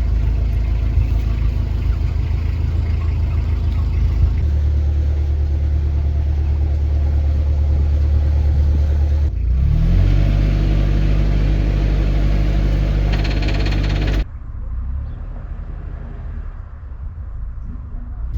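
Narrowboat engine running steadily, with a brief rise and fall in pitch about nine seconds in. About fourteen seconds in, the sound drops suddenly to a quieter, duller engine rumble.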